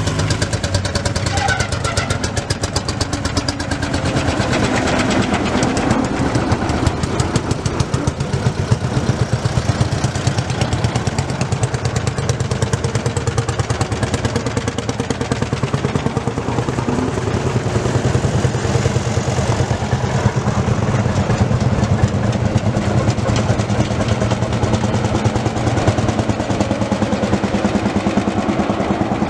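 Vintage tractor engine running steadily, with a rapid, even firing beat.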